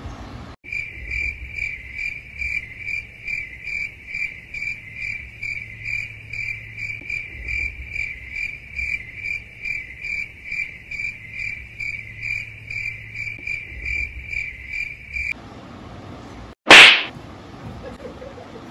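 Crickets-chirping sound effect: an even high chirp repeating about three times a second, cutting in and out abruptly. About a second and a half after it stops comes one sudden, loud, sharp smack, the loudest sound.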